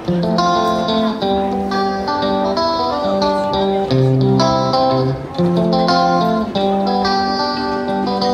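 Background music: a plucked guitar tune with a melody of clear notes changing about twice a second.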